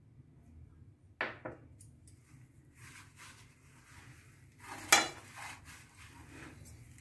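Hands rubbing and mixing ground moong dal paste into dry flour in a bowl, with a soft scratchy rubbing of the crumbly dough. Two sharp clinks against the bowl come a little after one second in, and a louder clink comes about five seconds in.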